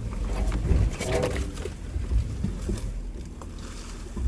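A Jeep Wrangler Rubicon crawling over a rocky, rutted dirt trail, heard from inside the cab: a low engine and drivetrain rumble with irregular knocks and rattles as the tires roll over rocks and the body shifts, busiest about a second in.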